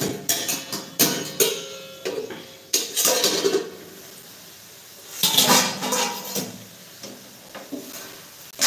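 Steel pots and cooking utensils knocking and clinking, with a spoon working in a metal pan. There are several sharp knocks in the first three seconds and a louder clatter about five seconds in.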